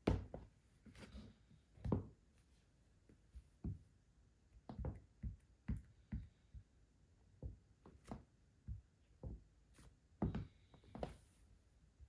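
Stiletto heels of high-heeled sandals knocking on a wooden floor: a string of irregular heel taps and thunks, some sharp and loud, others softer.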